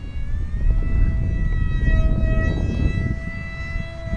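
Scratch-built F-18 RC jet's electric motor whining in flight, a high steady whine that rises in pitch for the first half second and then holds. Under it is a low rumble of wind on the microphone.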